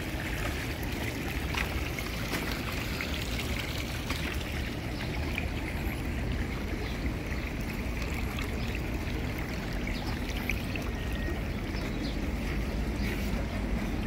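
Water running steadily through a man-made fountain, flowing out of a slate chute into a stone basin and pouring over the basin's lip into the pool below.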